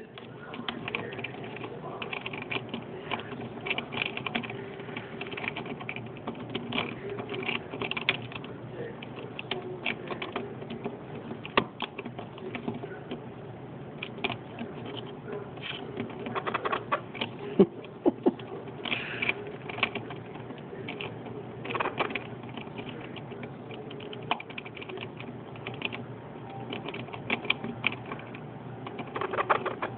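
Hahn's macaw's beak clicking, tapping and gnawing on the hard plastic and metal suspension parts of a Losi 22 RC buggy. The clicks come irregularly, in quick clusters, throughout.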